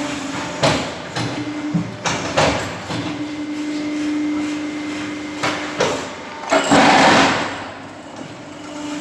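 Hydraulic concrete block and paving-block press running: a steady hum from the hydraulic power unit, with several sharp metallic clanks and a louder noisy stretch of about a second near the end.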